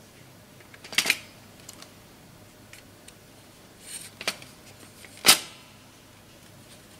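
Sharp plastic clicks and clacks from a Brother TN-1030 toner cartridge and DR-1030 drum unit being handled: a quick cluster about a second in, a couple more around four seconds, and the loudest single click a little after five seconds.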